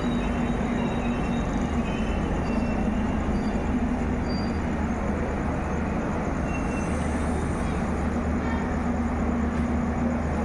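Passenger coaches of an arriving express train rolling past: a steady rumble of wheels on rail, with a low steady hum and a few brief, faint high squeals.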